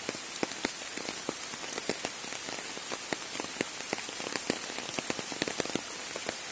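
Steady rain falling on trees and undergrowth: an even hiss with many separate drops tapping at irregular moments.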